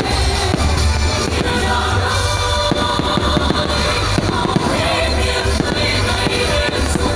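Fireworks bursting and crackling over loud music with a heavy bass line.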